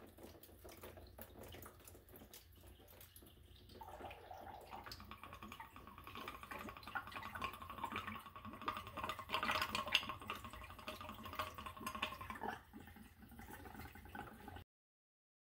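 Water dripping and trickling from an opened brass zone-valve body on a hot-water heating line, with small clicks of brass parts being handled. A faint steady tone joins the trickle about four seconds in and fades after about twelve seconds. The sound cuts off shortly before the end.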